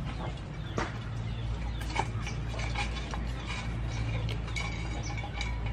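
Outdoor ambience: scattered sharp clicks and short high tones over a steady low hum.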